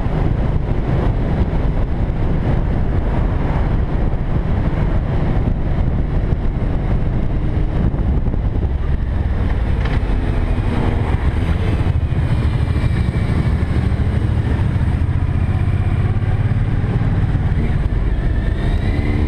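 Motorcycle engine running steadily at road speed, under wind rushing over the microphone.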